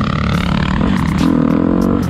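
Dirt bike engine running on the move, its pitch rising and falling as the throttle changes, with wind buffeting the microphone.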